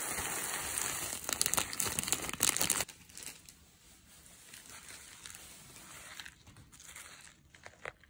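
Plastic packet of tenkasu (crispy tempura bits) crinkling as the bits are shaken out into a mixing bowl, a dense crackle with sharp rustles for about three seconds. After that it goes much quieter, with a few faint light clicks near the end.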